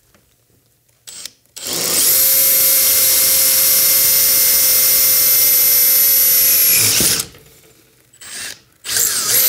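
Brushless cordless drill running at a steady speed with a constant whine for about five seconds as a 17/64-inch bit cuts through a sheet-metal plate toward the matching hole in the bracket behind it. It stops, then gives two short bursts near the end.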